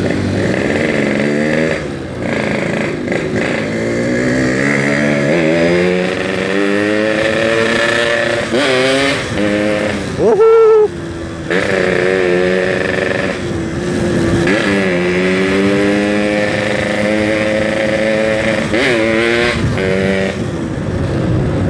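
Yamaha RX-King two-stroke motorcycle engine on the move, its pitch climbing and dropping again and again as it revs through the gears, with a short louder burst about ten seconds in. The engine sounds very noisy, which the rider takes as a sign that it is due for an overbore.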